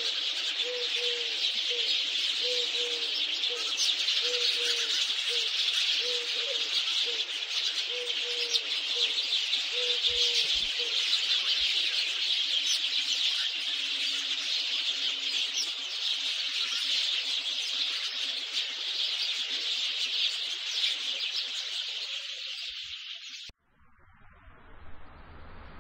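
Dense chorus of birds chirping, with a low cooing note repeated about once a second through the first ten seconds. The chorus cuts off suddenly near the end, leaving a faint hiss.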